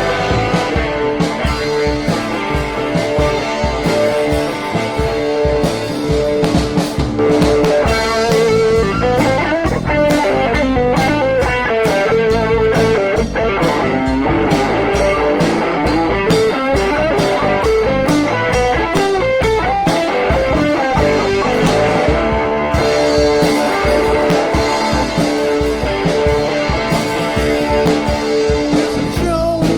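Rock music with a driving beat and a guitar playing an instrumental break, with no singing.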